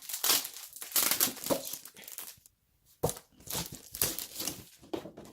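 The wrapping of a pack of posters crinkling and tearing as it is opened, in irregular bursts of rustling with a short pause about halfway through.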